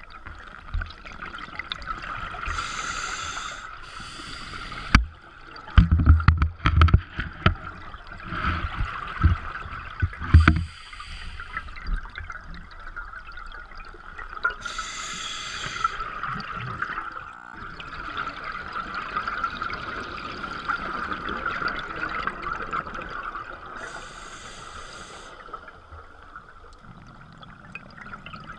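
Scuba diver breathing through a regulator underwater: a hiss roughly every ten seconds, with bubbling and gurgling between, over a steady high whine. A run of loud, low rumbling bursts comes a few seconds in, as exhaled bubbles stream past the camera.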